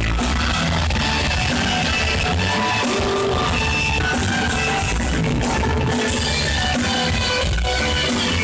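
Rock band playing live: electric guitars over a drum kit and heavy bass, with little or no singing.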